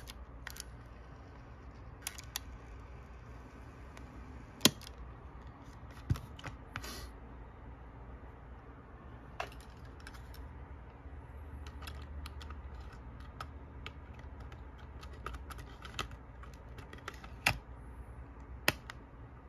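Scattered plastic clicks and knocks from a Sony WM-51 Walkman cassette player being handled, its cassette door shut and its buttons worked, with a few sharper clicks standing out against a faint steady background.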